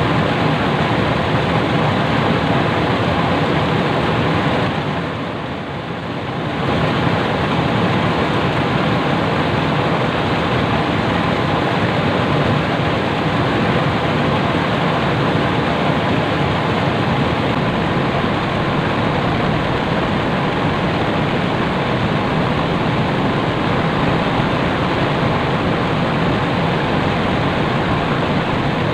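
Steady rush of fast-flowing river water, a continuous even noise that dips briefly about five seconds in before coming back.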